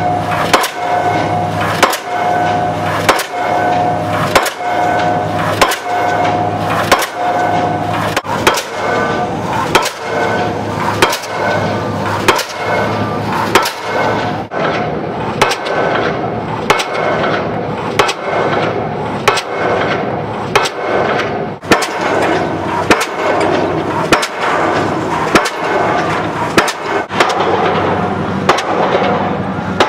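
Pile-driving hammer striking a pile in a steady rhythm, one sharp bang about every 1.2 seconds, over the steady low hum of an engine.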